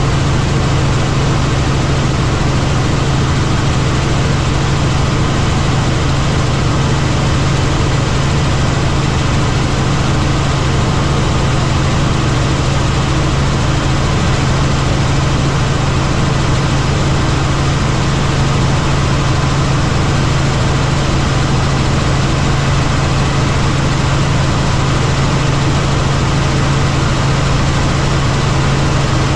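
Helicopter in flight heard from inside the cabin: a steady drone of engine and rotor with a strong low hum.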